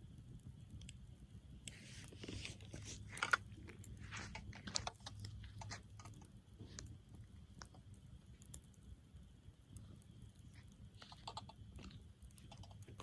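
Wood campfire crackling and popping softly over a low steady rumble, with a cluster of crackles a couple of seconds in and a sharp pop at the very end.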